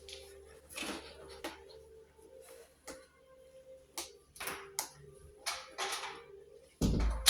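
Plastic Lego pieces handled and snapped together: scattered sharp clicks and short rustles, with a loud thump near the end.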